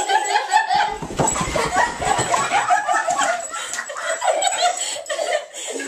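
Dog giving a quick run of short, high excited yelps and whines, with a low scuffling rumble from about one to two and a half seconds in.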